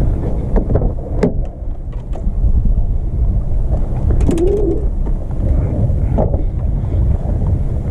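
Wind buffeting the microphone, with a few light clicks and a short wavering tone about four seconds in.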